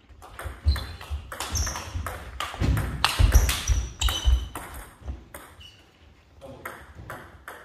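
Table tennis rally: the ball clicks quickly back and forth off the bats and the table, with low thumps of footwork on the wooden floor in the middle of the rally. The rally stops about five seconds in, and a few lighter ball clicks follow near the end.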